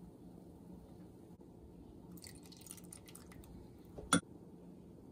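Faint light clicks and scraping, then one sharp clink of a metal measuring spoon against a metal saucepan a little after halfway, over a low steady hum.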